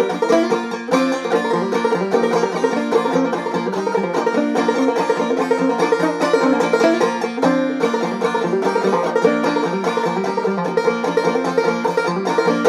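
Clawhammer banjo playing an instrumental break of quick, steadily rhythmic plucked notes.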